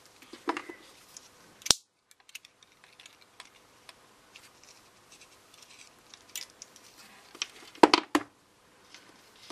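Small clicks and scrapes of a metal tool on the coil spring and plastic body of a single-AAA battery holder as the spring is stretched so the cell will reach its contact. A sharp pair of knocks comes about eight seconds in.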